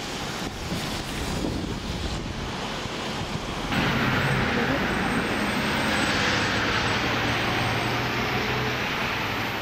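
Road traffic noise on a city street, a steady rush of passing vehicles. About four seconds in the sound changes abruptly to a louder, even rush with a low hum beneath it.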